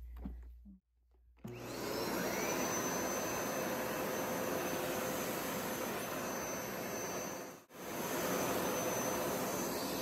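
Hoover SmartWash Pet Expert upright carpet cleaner switched on about a second and a half in. Its motor spins up with a quickly rising whine and then runs steadily with a loud rushing suction noise as it cleans the carpet. The sound breaks off for an instant about two-thirds of the way through, then carries on unchanged.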